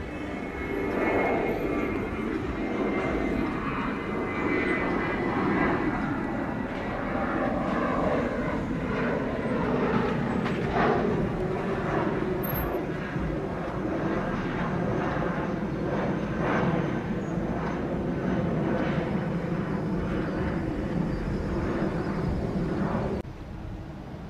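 Twin turbofan engines of a Boeing 737-800 airliner at takeoff thrust as it climbs out: a steady, loud rush of jet engine noise that cuts off suddenly near the end.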